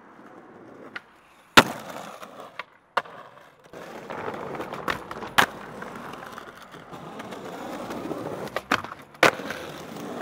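Skateboard wheels rolling on rough street pavement, broken by several sharp clacks of the wooden deck popping and landing, the loudest about a second and a half in.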